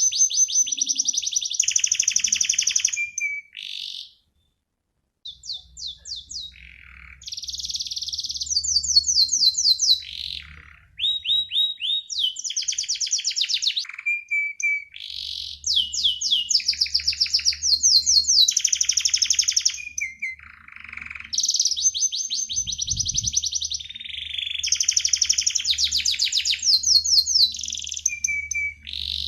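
Domestic canary singing: long, high-pitched rolling trills of rapid repeated notes mixed with chirps, in phrases broken by short pauses, including one brief silence about four seconds in.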